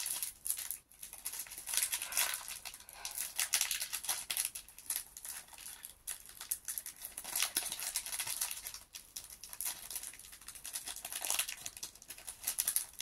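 Foil Pokémon card booster pack wrapper crinkling and tearing as fingers pull at its tough sealed top to get it open.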